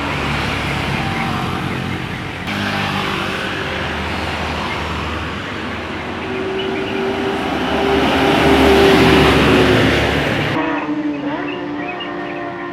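Large bus passing close, its engine and tyres loud, with a held horn tone as it goes by, loudest about eight to nine seconds in. The sound changes abruptly near the end to a multi-tone telolet bus horn playing a short run of rising notes.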